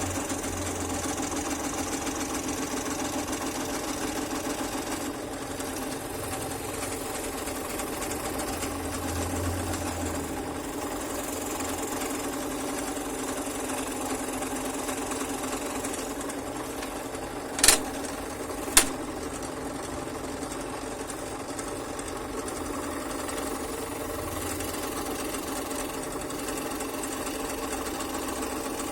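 Scroll saw running steadily, its very fine blade cutting slowly through wood along a letter pattern. Two sharp clicks about a second apart a little past the middle are the loudest sounds.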